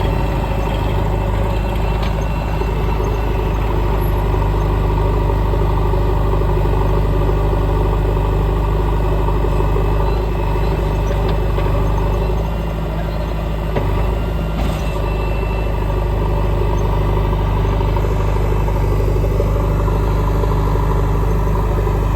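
Diesel engine of a JCB 3DX backhoe loader running steadily at a constant speed while it digs and loads soil, with an occasional faint clunk.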